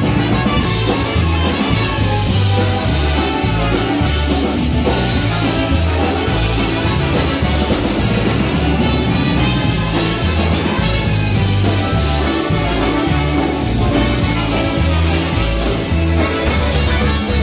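Live polka band playing an instrumental passage: trumpets, clarinet, saxophone and concertinas over electric bass and a drum kit, the bass changing notes on a steady beat.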